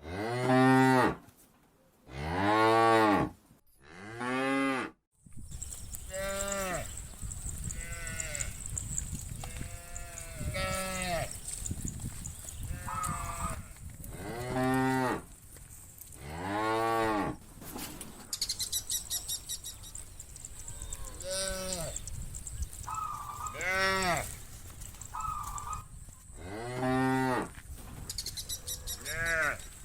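A herd of cattle mooing, one long call after another, about fifteen in all, with three loud moos in the first few seconds. From about five seconds in, a steady background noise runs under the calls, and a high rapid buzzing comes in twice.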